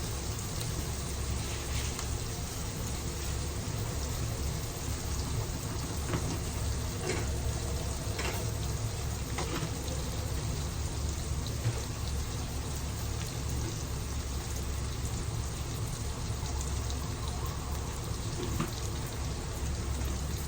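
Pork and onions sizzling steadily as they fry in oil in a pan, with a few faint clicks partway through.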